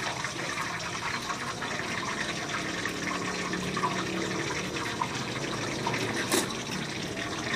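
Hot cooking oil sizzling steadily with fine crackling as street-food snacks deep-fry in a pan. There is one sharp click about six seconds in.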